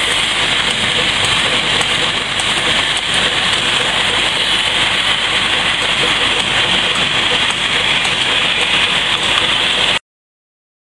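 Empty cigarette-tube making machine running, a steady, dense mechanical noise with a strong hiss-like upper band. It cuts off abruptly about ten seconds in.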